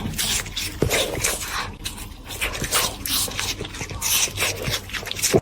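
A dog making a run of short, irregular noisy sounds.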